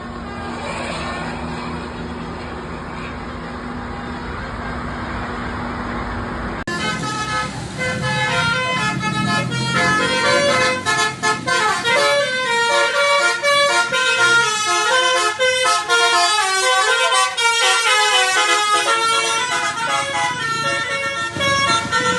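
Steady vehicle rumble for the first few seconds, then an Indonesian 'telolet' bus air horn starting suddenly and playing a fast, melodic run of tooting notes at different pitches.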